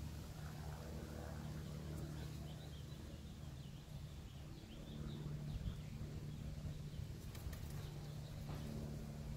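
Faint outdoor background: a steady low hum with faint bird chirping, and a few light clicks near the end.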